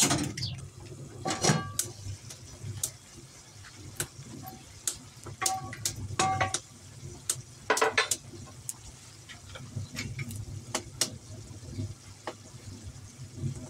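Irregular clicks, knocks and clinks of hard objects being handled, a few with a short metallic ring, over a low steady hum.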